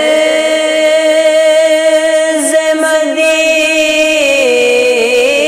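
A male voice singing a naat, an Urdu devotional poem, drawing out a long held note with wavering melodic turns that dips in pitch near the end.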